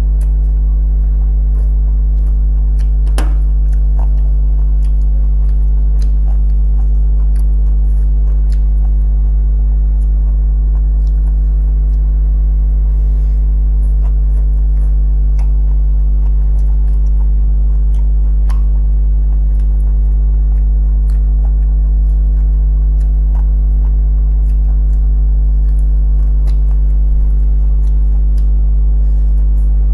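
A loud steady low hum, with faint chewing and small clicks of fingers working rice on a plate above it.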